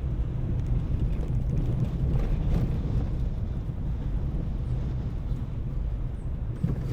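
Car driving along a rough road under construction: a steady low rumble of engine and tyres, with some wind noise.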